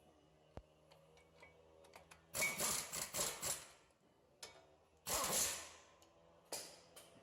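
Metal brake parts being handled: short bursts of clatter and scraping, a cluster about two and a half seconds in and another about five seconds in, with a lighter click before and a shorter rattle near the end.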